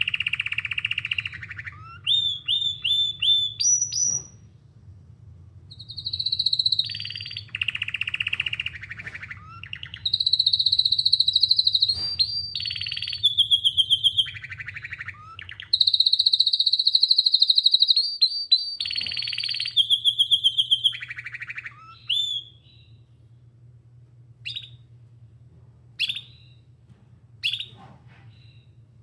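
Domestic canary singing: a run of song phrases made of rapid trills, long rolling notes and quick repeated notes, giving way after about 22 seconds to single short chirps. A steady low hum sits underneath.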